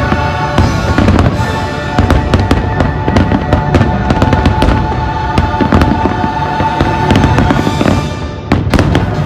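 Fireworks display: rapid bursts and dense crackling over the show's music soundtrack, with a cluster of sharp loud cracks near the end.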